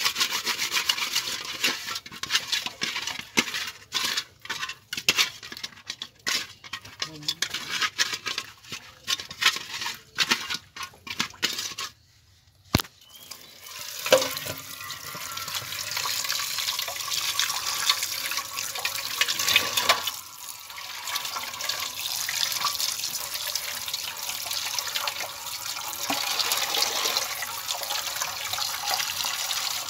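Hands scrubbing tilapia in salt in a metal bowl: rapid, gritty rubbing strokes. After a short break about twelve seconds in, tap water pours steadily onto the fish and splashes into the bowl as it is rinsed by hand.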